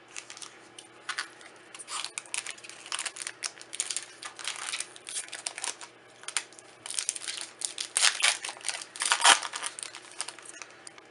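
Foil wrapper of a Magic: The Gathering draft booster pack being torn open and crinkled. The crackling comes in irregular bursts, is loudest near the end, and stops shortly before the end.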